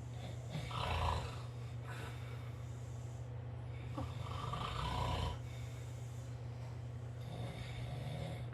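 A sleeping dog snoring: three drawn-out snores about three and a half seconds apart, the last one fainter, over a steady low hum.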